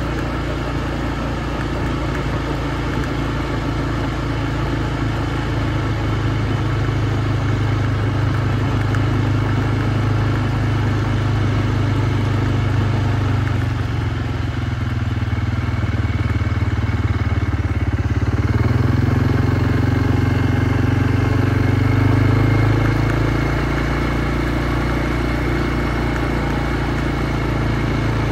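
Kymco MXU 300 ATV's single-cylinder four-stroke engine running steadily. Its engine speed drops a little past the middle, then climbs again.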